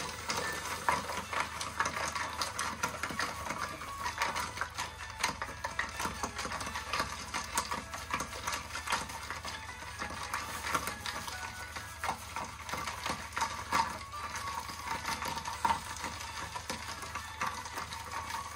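Ice cubes clinking and rattling against the inside of a glass coffee server as it is swirled to chill freshly brewed pour-over coffee, a dense run of small clicks without a break.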